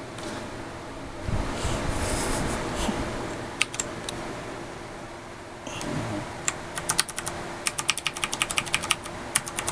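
Mechanical keyboard with Cherry MX Brown switches being typed on: a few single keystrokes, then fast, continuous typing through the second half. A low rumble is heard about a second in.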